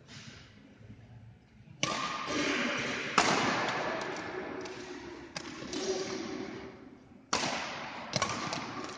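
Badminton rackets hitting the shuttlecock in a fast rally, about five sharp hits a second or two apart, starting about two seconds in. Each hit rings on in the echo of a large hall.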